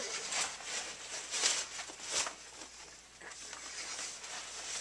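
Rustling and handling noises from a backpack being rummaged through, with a few sharper clicks about one and a half and two seconds in.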